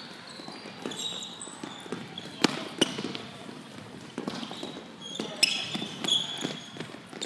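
Tennis balls bouncing on an indoor sport court and athletic shoes squeaking and thudding as players shuffle, sprint and lunge to grab them, with sharp bounces scattered through and a busier run of squeaks in the second half.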